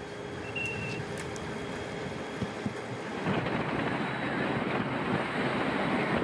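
Steady rushing noise of wind on the microphone and vehicle engines from the race's live sound, growing louder about three seconds in.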